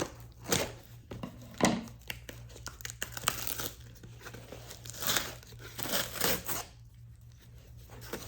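Packaging being torn open by hand, with irregular tearing, crinkling rustles and sharp clicks, in a small room.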